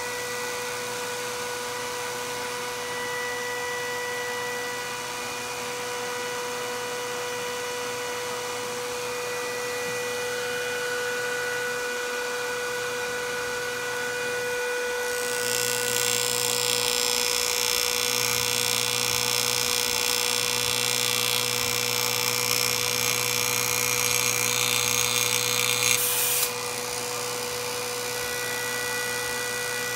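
A high-voltage hairpin circuit buzzes steadily while it drives a microwave oven's AC fan motor. About halfway through, a louder hissing crackle of high-voltage sparking joins in, and it cuts off suddenly near the end.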